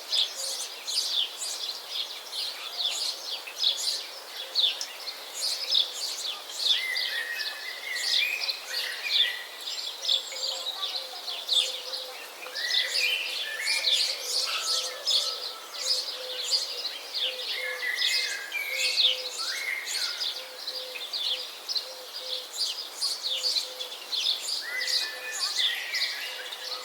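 Outdoor bird chorus: many small birds chirping and twittering rapidly and without pause. A lower, warbled phrase from another bird recurs every several seconds.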